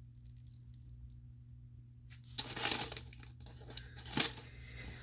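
A small packaging wrapper crinkling and tearing as it is opened, in a burst about two and a half seconds in, followed by a single sharp click near the end.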